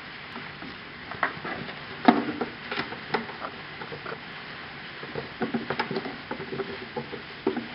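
Kittens playing: irregular soft taps, thumps and rustles of paws and a toy on a blanket and cardboard, the loudest thump about two seconds in and a quick run of taps a little past the middle.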